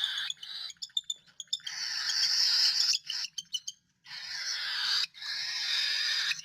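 Young cockatiels giving raspy, hissing food-begging calls: three long rasps, with runs of small clicks between them.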